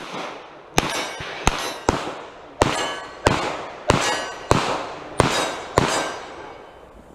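Pistol shots fired in a string, about ten over six seconds at an uneven pace of roughly one to two a second, each with a long echoing decay.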